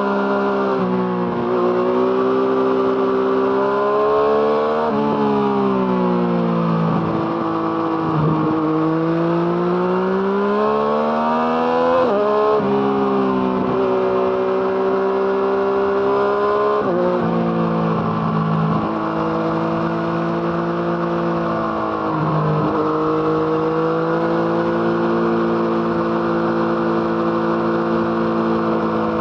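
Yamaha MT-09's three-cylinder engine through an Arrow Thunder aftermarket exhaust, under way. The engine note repeatedly climbs under throttle, then drops suddenly, several times, before holding a steady pitch over the last few seconds.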